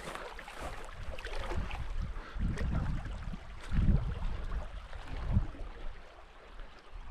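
Running water of a stream rushing steadily. Low thuds from walking footsteps and wind on the microphone come about every second and a half.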